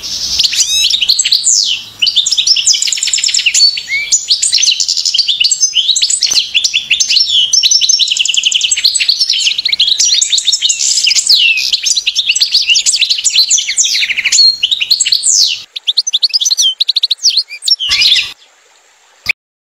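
European goldfinch twittering song: a fast, unbroken stream of high chirps and trills that cuts off suddenly about eighteen seconds in, followed by a single short click.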